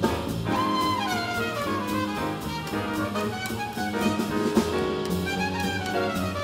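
Modern jazz quartet playing live: a trumpet leads with falling runs over piano, double bass and drum kit, with cymbals ringing throughout.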